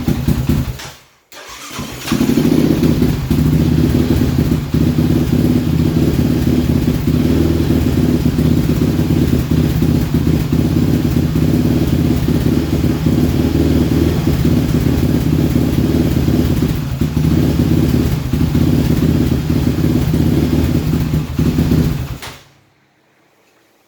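Yamaha Raptor 700's single-cylinder four-stroke engine cutting out about a second in, starting again and idling unevenly, with small dips, then cutting off near the end. The stalling and wandering idle come from a failing wire harness losing contact inside the midframe as it is pressed.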